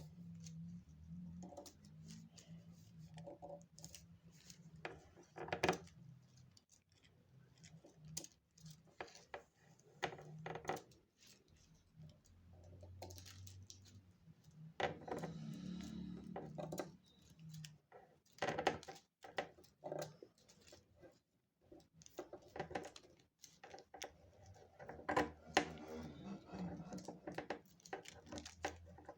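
Paper being handled and folded by hand on a table: scattered crinkles, taps and rustles, with a low steady hum underneath.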